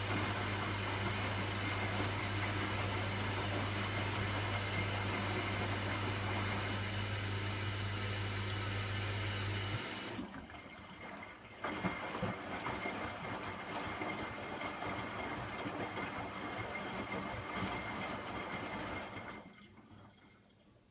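Hoover washing machine running: a steady motor hum that stops about ten seconds in, then a sudden rush of water that runs for about eight seconds before fading away.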